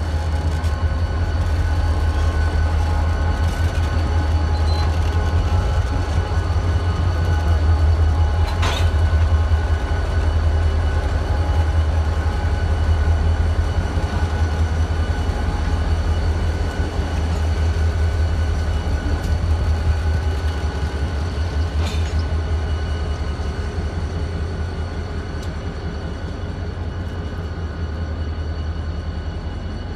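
Diesel locomotives rolling slowly past close by: a loud, deep, steady engine drone with faint steady high tones over it, and two sharp clicks, about nine seconds and about twenty-two seconds in.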